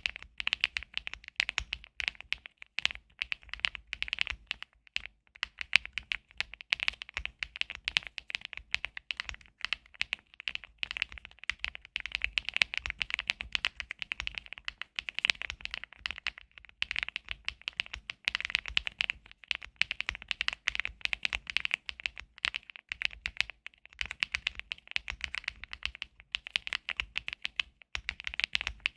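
Continuous typing on a Zoom75 custom mechanical keyboard with HMX Swift switches: a rapid, uneven stream of key clicks with a sharp, bright tone.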